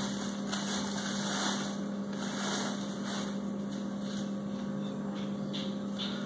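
Plastic wrapping rustling and crinkling in irregular swells as it is pulled off a stainless-steel pot, over a steady low hum.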